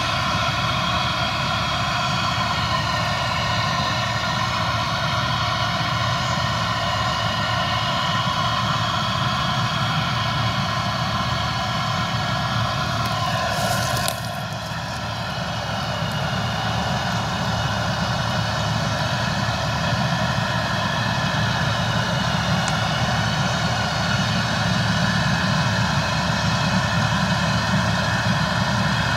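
HAWE grain overloading wagon unloading through its auger into a truck trailer, driven by its tractor's engine: a steady mechanical drone with a layered whine. The sound dips briefly about halfway through, then carries on.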